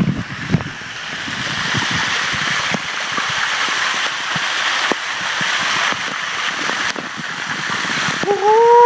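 Waterfall water rushing and splashing in a steady, dense hiss that grows a little louder. Near the end a person's voice calls out in one drawn-out, rising-then-falling note.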